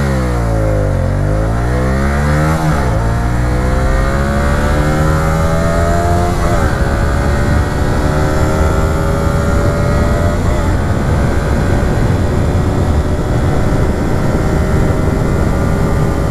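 Hyosung GT125's 125 cc twin-cylinder four-stroke engine, breathing through an aftermarket end silencer, accelerating hard from a standstill. The engine pitch climbs through the gears, dipping at three upshifts about 3, 6 and 10 seconds in, and rises more slowly in each higher gear.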